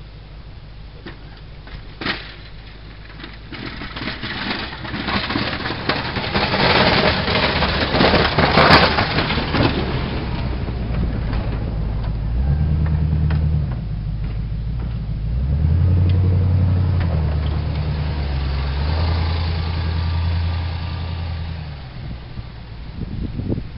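A GMC Jimmy's 400 V8 working under load while plowing snow. In the first half a loud rushing, crunching noise swells and fades. Then the engine's low drone steps up and down in pitch, loudest about two-thirds of the way in, and drops off near the end.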